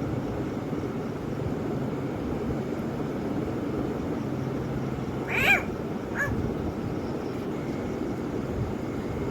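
A frog's distress scream, a short cat-like cry, while a snake grips and pulls its leg: one loud cry about five and a half seconds in and a fainter one just after, over a steady low background hum.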